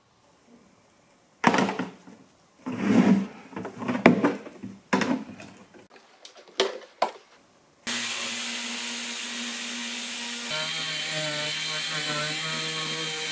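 Knocks and rubbing of a plastic live-well tank and its lid being handled, then a right-angle air drill running steadily with a high hiss as it drills into the tank's plastic wall; its pitch drops a little partway through the drilling.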